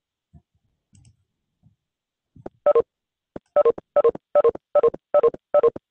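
Video-call app's short two-note falling chime, repeating about two and a half times a second from a little over two seconds in as participants leave the meeting one after another. A few faint low knocks come before it.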